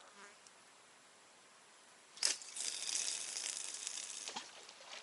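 A sharp click about two seconds in, then nearly two seconds of rustling and crinkling, ending in another click.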